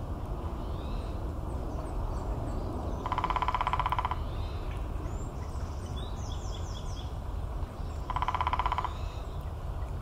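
Male downy woodpecker drumming on a tree trunk: two fast, even drum rolls of about twenty beats each, about three seconds in and again about five seconds later, each lasting about a second.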